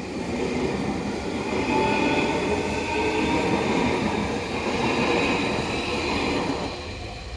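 A train passing over a level crossing: the rumble and clatter of its wheels on the rails swells within the first second, holds for about six seconds, and fades near the end.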